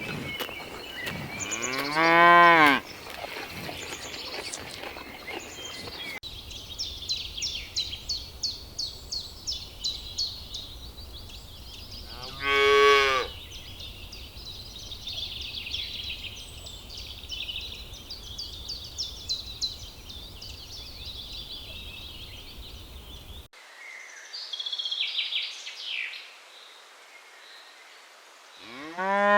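Cows mooing: three separate long moos, each about a second, rising and then falling in pitch. Between the moos there is rapid, high chirping.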